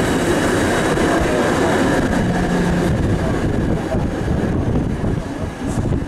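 1951 PCC streetcar running along the street, heard from inside the car: a steady rumble and rattle of wheels on rail and car body, easing slightly near the end.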